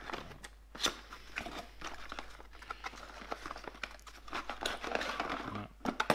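A cardboard box being opened by hand: the card scrapes and rustles as the box slides apart, with light knocks and clicks. Near the end the scraping grows busier as a power supply brick and its cable are lifted out.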